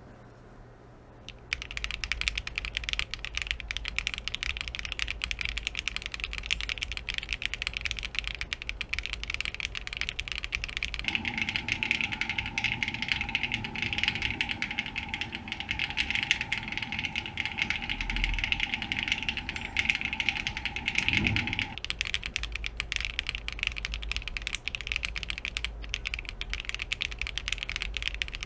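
Continuous typing on a Geon Frog TKL mechanical keyboard with HMX Macaron switches on POK stems in an aluminium leaf-spring plate, starting about a second and a half in. From about 11 to 22 seconds a faint steady tone hums beneath the keystrokes.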